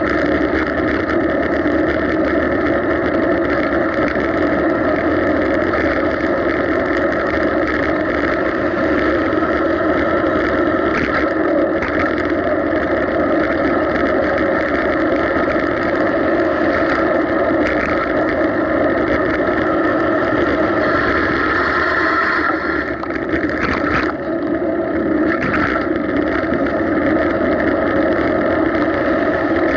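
Steady drone of a bicycle in motion, picked up by a camera mounted on the bike: rolling and wind noise, with a couple of short knocks about three-quarters of the way through.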